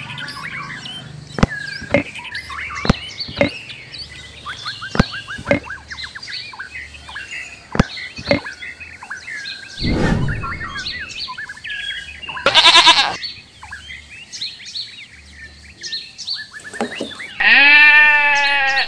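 Goat bleats added as sound effects over a birdsong background: birds chirp with a few sharp ticks through the first half, a short bleat comes about twelve and a half seconds in, and a longer, louder bleat comes near the end.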